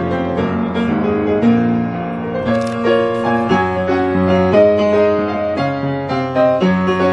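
Background piano music: a melody of quick successive notes over sustained chords.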